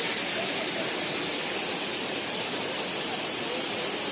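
Steady rush of water from a waterfall on a mountain stream, with faint voices underneath.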